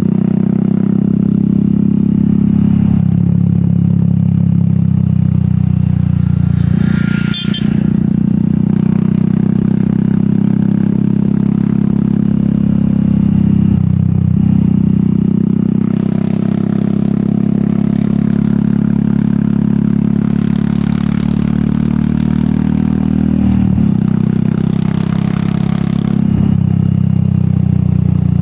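Royal Enfield Meteor 350's single-cylinder engine running through an aftermarket sport exhaust under way, its note stepping up and down in pitch several times. A sharp click with a momentary dip in the engine sound comes about seven seconds in.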